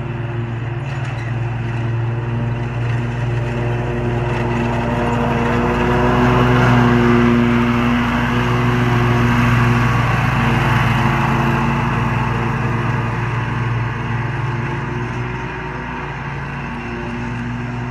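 Snapper Pro zero-turn mower running steadily with its blades cutting grass, growing louder as it passes close by about six to eleven seconds in, then easing off as it moves away.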